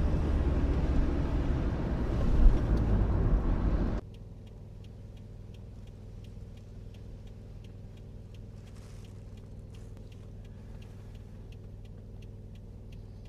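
Car interior sound: loud, low road and engine noise while driving. About four seconds in it cuts abruptly to a much quieter steady engine hum with faint, evenly spaced ticks.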